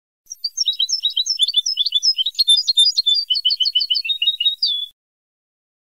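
European goldfinch song from a Moroccan old-style 'Ceuta' tutoring tape, used to teach goldfinches their song: one strophe of fast twittering notes lasting about four and a half seconds, cut off cleanly into silence.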